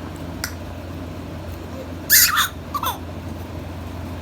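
A baby's high-pitched squeal about two seconds in, followed by a shorter squeak that falls in pitch, over a steady low hum.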